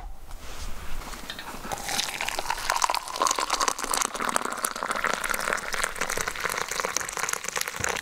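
Hot water poured from a kettle into a mug of ground coffee, a steady pouring stream whose pitch rises as the mug fills, stopping abruptly at the end. A sharp knock comes at the very start.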